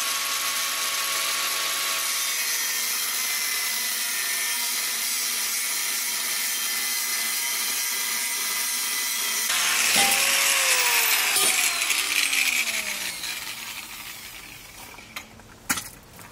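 Angle grinder with a cut-off disc cutting through a metal tube, a steady high whine with cutting noise. About ten seconds in it gets louder briefly, then it is switched off and the whine falls in pitch as the disc spins down, followed by a few clanks near the end.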